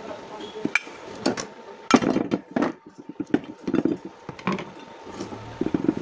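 Ceiling fan parts being handled: the copper-wound stator being worked loose and lifted out of the fan's metal casing, giving a run of irregular knocks and clinks of metal on metal and on the table, the loudest about two seconds in.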